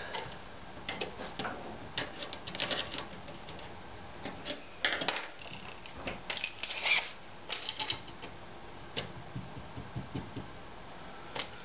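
Scattered clicks, light knocks and short rattles from hands working on an aluminium extrusion frame, with a tape measure handled and extended against it.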